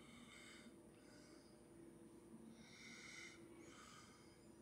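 Near silence, with faint, soft breaths close to the phone's microphone, about one every second.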